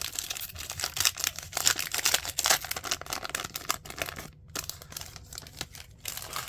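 Basketball trading cards and their packaging being handled at close range: a fast, irregular run of rustles and flicks that thins out over the last couple of seconds.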